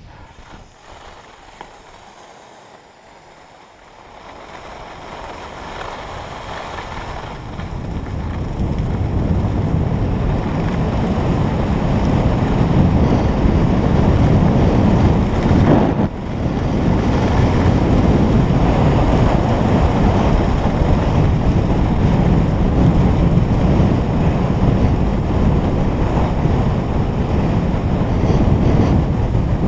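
Wind buffeting a skier's point-of-view camera microphone while skiing downhill. It starts quiet, builds over the first several seconds as speed picks up, then settles into a loud steady rush, with one brief dip about halfway through.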